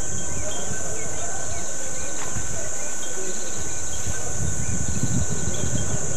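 Steady, high-pitched drone of an insect chorus on a grassy hillside, with wind rumbling on the microphone that swells about five seconds in.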